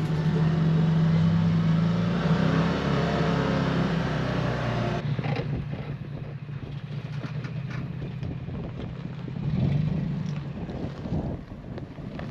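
Vehicle engine running steadily while driving on a dirt road. About five seconds in the sound changes abruptly to a quieter mix of engine and wind noise on the microphone.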